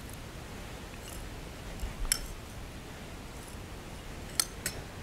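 A few light clicks and taps as granola is added into a wine glass, over a low steady room hum. There is a small cluster about two seconds in and two more near the end.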